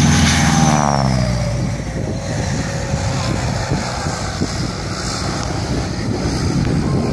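North American T-6 Texan's radial engine and propeller passing low and close, the pitch dropping sharply over the first second or so as it goes by, then settling into a steady rumble as the plane climbs away.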